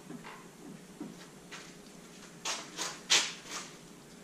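A man nosing a glass of scotch: four short sniffs in quick succession about halfway through, the third the loudest, after a few faint soft sounds.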